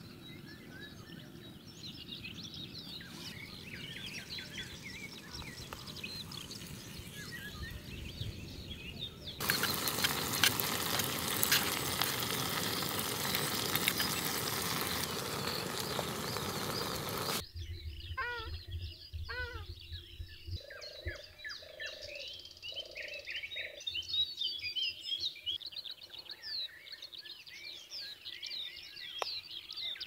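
Birds chirping over a faint outdoor hush; about nine seconds in, loud sizzling and crackling of bacon, eggs and beans frying in a small camping pan on a gas canister stove, which cuts off suddenly some eight seconds later. Birdsong and chirps then continue, with a short run of low repeated calls.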